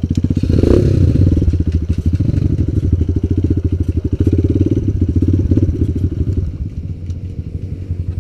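Kawasaki KLX 150 G's single-cylinder four-stroke engine running under throttle as the dirt bike rides along a dirt trail, with a short burst of noise about a second in. The engine eases off to a lower, quieter run near the end.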